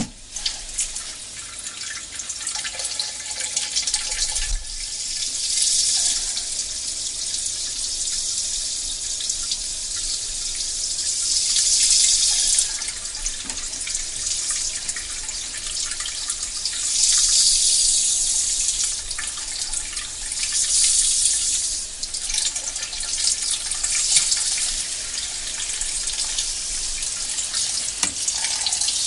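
A person urinating: a continuous stream of liquid splashing, swelling louder and easing off several times.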